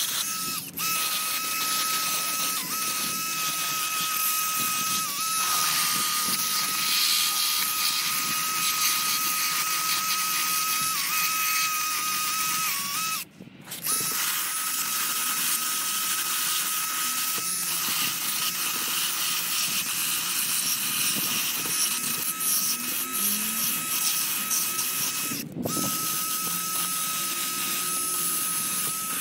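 Small handheld high-speed power tool running with a steady high whine, its pitch sagging slightly now and then as it bears into the work. It stops for a moment about thirteen seconds in and again briefly near the end.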